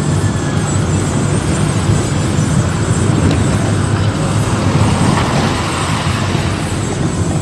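Steady low rumble of road and engine noise from a moving vehicle while driving.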